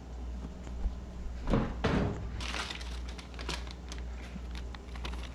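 Two dull thumps about a second and a half in, followed by a brief patch of clicks and rattling, over a steady low hum.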